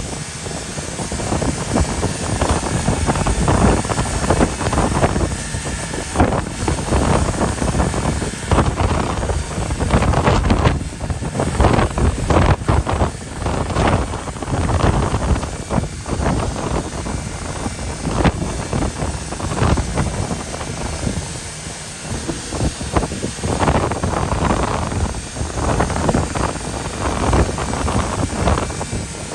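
Wind buffeting the microphone in uneven gusts, a low rumbling roar that swells and fades.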